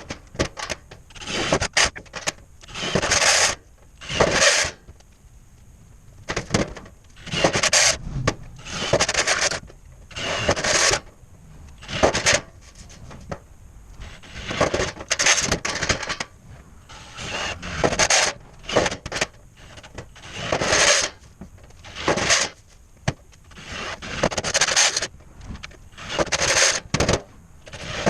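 Irregular rasping, rubbing strokes of hand work on a surface, each up to about a second long, with short pauses between them.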